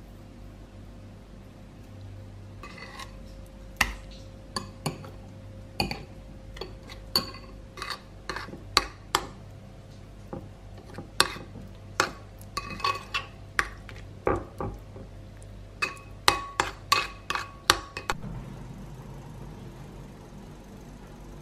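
Metal spoon stirring in a ceramic bowl, clinking against its sides in an irregular run of sharp taps, sometimes several a second. The clinking stops near the end, leaving a low steady hum.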